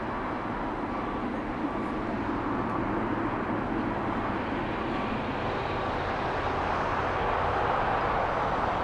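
Jet airliner engine noise, a steady rush that grows gradually louder over the second half.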